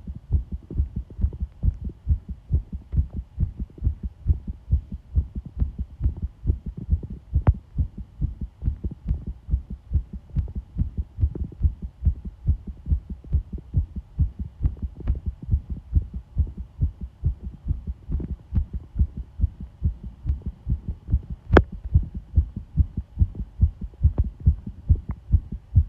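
Human heartbeat: a steady, even rhythm of low thumps over a faint hum, with two sharp clicks, about 7 seconds in and again about 21 seconds in.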